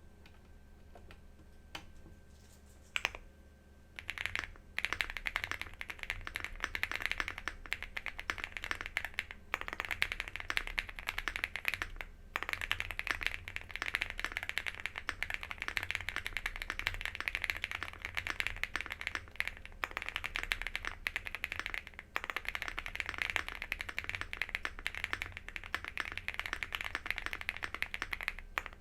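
Typing on a stock WOBKEY Rainy75 mechanical keyboard with factory-lubed WOB switches, an FR4 plate and double-shot PBT keycaps. A few separate keystrokes at first, then fast continuous typing from about four seconds in, broken by a few brief pauses.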